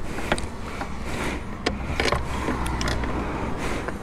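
Scattered metallic clicks and knocks from fiddling an air-hose nozzle onto a motorcycle's rear tyre valve, over a low steady hum.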